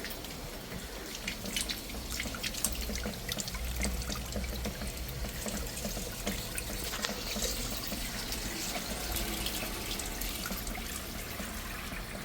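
Water running and splashing over built-up ice inside a refrigerator to defrost it, with small scattered drips and splashes: the ice is blocking the water tray and stopping the cold from reaching below.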